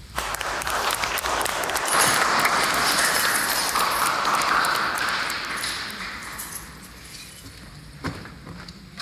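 Applause from a small audience in a cave chamber. It starts suddenly and dies away over the second half.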